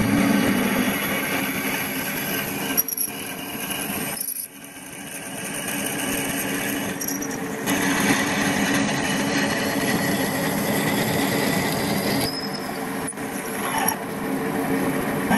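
Bench metal lathe of the WM210V / YZ-210D type drilling into a small part held in its chuck with a twist drill in the tailstock: a steady motor and spindle whine mixed with the cutting noise of the drill. The sound drops away briefly about four seconds in, then comes back steady.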